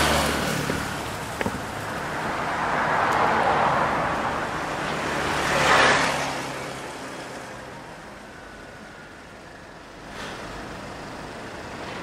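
Road traffic: vehicles passing one after another, each swelling and fading, the sharpest pass just before six seconds in, after which it quiets down for a few seconds.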